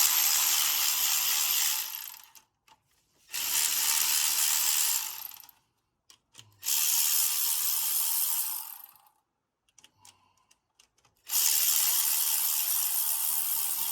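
Cordless power tool run in four bursts of about two seconds each, with short pauses between, while backing out the two pins that hold the top timing chain guide of a 2.4L Ecotec engine.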